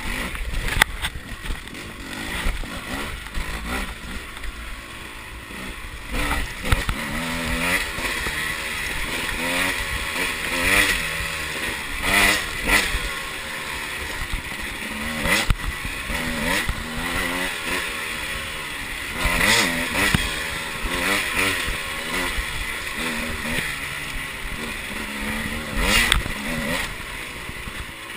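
Two-stroke enduro motorcycle engine, a 300cc trail bike, revving up and down again and again as it is ridden along a trail, heard from on the bike.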